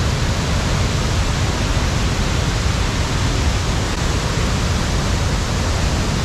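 Loud, steady rush of a waterfall in full flood, swollen by heavy rain.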